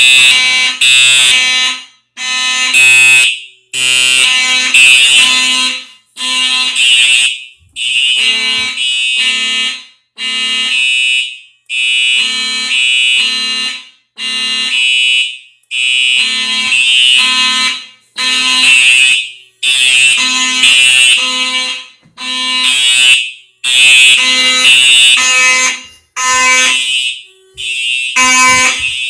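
Simplex fire alarm horns, a 4903-9417 TrueAlert horn strobe and a 9838 horn, sounding together in alarm. The loud horn tone pulses on and off in a pattern that repeats about every four seconds.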